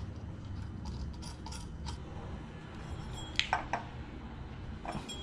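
Light metallic clicks and clinks of a bolt and hand tool on a torque converter's driver clutch as the crankshaft bolt is fitted, with a few sharp clicks about three and a half seconds in and again near the end.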